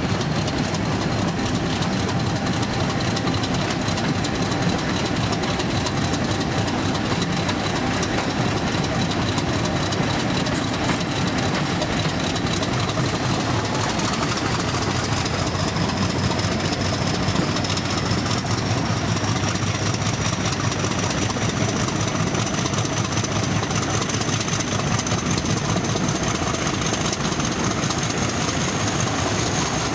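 British Rail Class 50 diesel locomotive working under power, its English Electric 16-cylinder engine running steadily with a high turbocharger whine that climbs in pitch about halfway through.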